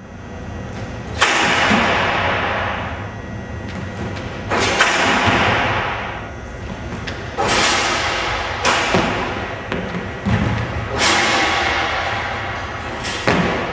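Basketball jumping and dunking sounds in a gym: a series of about eight sharp thuds and bangs from the ball, rim and backboard and from feet landing on the hardwood floor. Each hit rings on in the hall's echo, and the loudest come about a second in and near the end.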